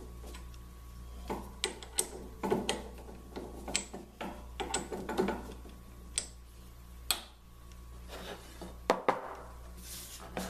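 Drill press Jacobs chuck being tightened by hand around the shank of a one-inch Forstner bit: scattered metallic clicks and short scrapes of the chuck and its key. Near the end, a hand brushes across the wooden table.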